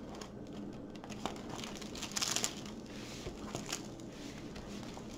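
Clear plastic sleeve of a diamond painting canvas crinkling and rustling as the canvas is handled and pressed flat, with a louder crackle about two seconds in.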